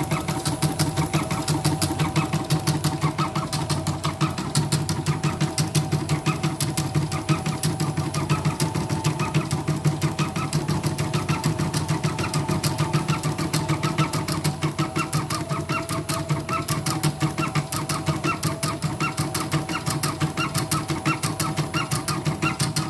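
CNY portable computerized embroidery machine with its cover off, stitching a dense fill design: a fast, even clatter of needle strokes over a steady motor hum. It runs smoothly after repair of uneven stitching.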